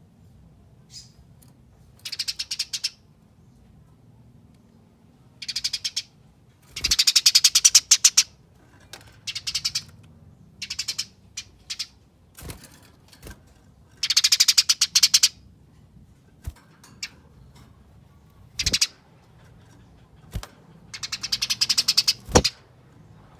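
Eurasian tree sparrow giving its rapid, chattering fighting call in short bursts of quickly repeated high notes, each burst about half a second to a second and a half long, with pauses between them. A few sharp clicks fall between the bursts.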